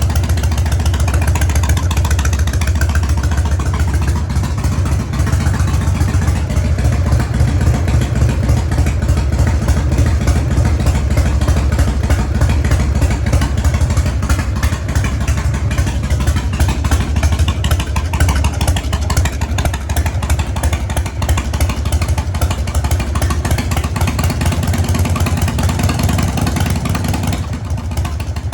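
1996 Harley-Davidson Evolution V-twin motorcycle engine idling steadily in cold weather with a loping beat that can be described as galloping. Near the end it gets a little quieter and the higher tones drop away.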